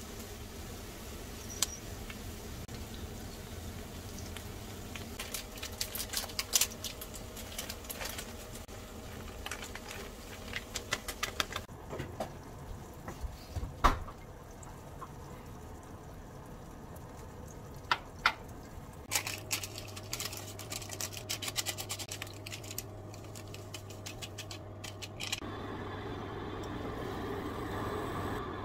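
Cooking at a frying pan on an induction hob: scattered light clicks and taps of chopsticks and utensils against the pan, with one sharper knock about halfway through as a glass lid is set on the pan, over a steady low background hum.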